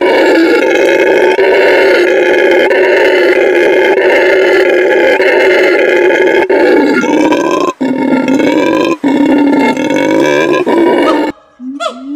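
Howler monkey giving a long, hoarse, loud roar, broken only by two short breaths about eight and nine seconds in. Near the end the roar stops suddenly and siamang calls begin: short whoops that sweep up and down in pitch.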